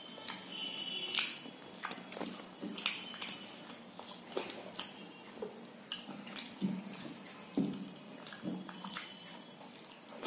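Wet, irregular mouth smacks and chewing of a person eating rice and dal by hand, along with fingers scraping the last of the food across a steel plate. The sharp clicks come a few times a second.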